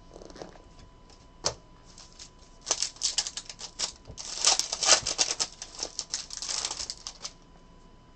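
Foil wrapper of a Panini Prizm basketball card pack crinkling and tearing as it is ripped open by hand: one sharp crackle about a second and a half in, then a dense crackle of rapid small clicks in a short burst and a longer one of about three seconds.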